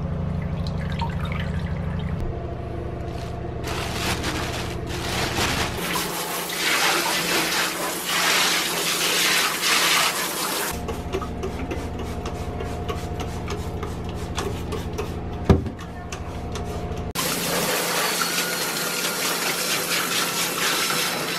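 Water spraying from a handheld showerhead into a bathtub, rinsing it out in two stretches with a pause between, over a steady low hum. One sharp knock sounds during the pause.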